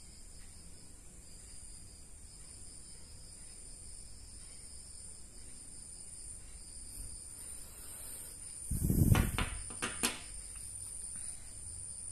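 Faint steady high-pitched insect chirring throughout. About nine seconds in comes a dull bump of handling, then a few sharp clicks as machined aluminium bushings are set down on a glass table top.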